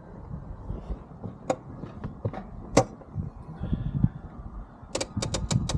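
Foot-operated parking brake pedal of a 2014 Chevy Silverado being pushed down, its ratchet giving a quick run of about seven clicks near the end, with a few separate knocks before it. The pedal is being tested for slack after the new parking brake cables were adjusted, and it still feels tight.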